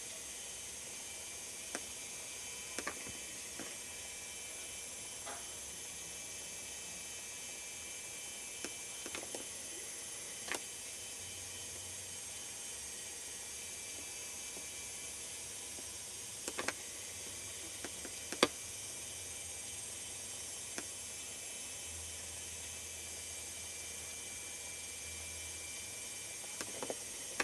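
Steady recording hiss with a low hum that comes and goes, broken by a dozen or so short sharp clicks, the loudest about eighteen seconds in.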